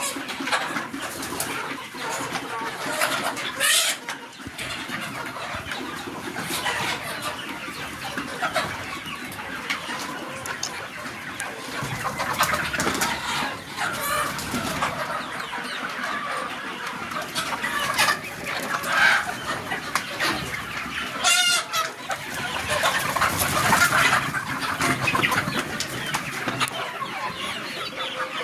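A flock of desi chickens clucking and calling continuously, many birds overlapping.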